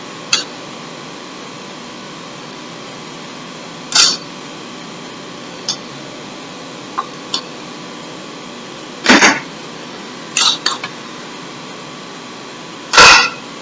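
Scattered knocks and clatter of kitchen utensils and containers being handled and set down, about eight separate short hits spread out, over a steady background hum.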